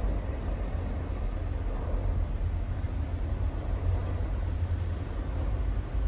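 Deep, steady rumble of the erupting Cumbre Vieja volcano, its main cone and side vent both in lava-fountaining eruption.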